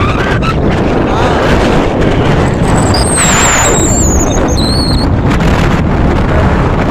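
Steady loud rumble of wind and road noise in a moving Ashok Leyland truck. A high squeal cuts in about three seconds in, with a shorter one near five seconds.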